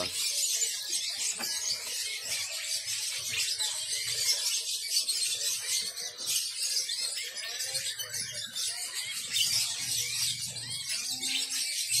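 Many caged songbirds chirping and twittering at once, a dense high-pitched chorus of overlapping calls, with faint voices murmuring underneath.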